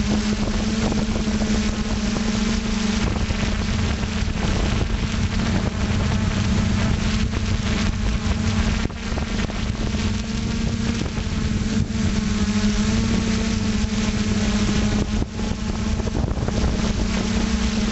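FPV multirotor drone's electric motors and propellers buzzing at a steady pitch that shifts slightly now and then, with wind rushing over the onboard microphone.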